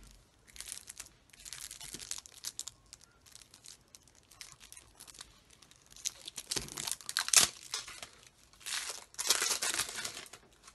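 Clear plastic shrink-wrap crinkling and tearing as it is peeled by hand off a deck of game cards, in irregular rustling bursts, the loudest in the last few seconds.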